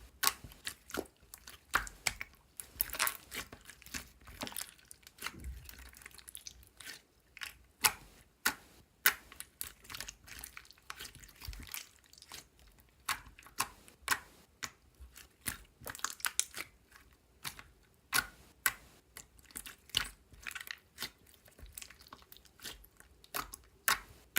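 Pink shell-shaped sequins and pearl beads being handled: irregular crinkling and sharp clicks, several a second.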